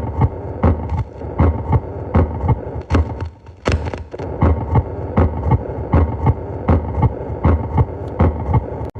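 Heartbeat heard through a stethoscope: regular heart sounds at about 80 beats a minute over a steady hiss, with a short break about a third of the way in.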